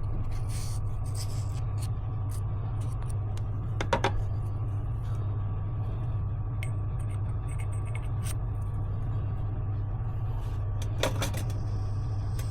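A steady low hum with a few light clicks or taps, the clearest about four seconds in and again near the end.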